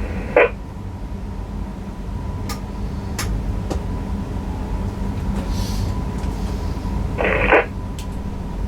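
Cab interior of a Newag Impuls EN63 electric multiple unit under way: a steady low running rumble with a few sharp clicks and a brief hiss. Two short pitched signal tones sound, one just after the start and a longer one near the end.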